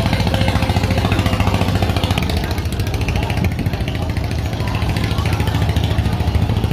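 Speedboat outboard engine idling at the jetty, a steady, fast-pulsing low drone.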